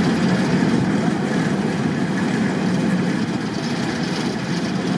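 Diesel shunting locomotive D4106 with its English Electric six-cylinder engine idling steadily.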